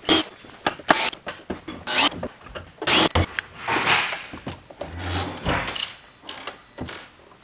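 Clicks, knocks and rubbing as the plastic housing of a coffee roaster is handled and its screws are taken out with a drill, with a brief low hum about five seconds in.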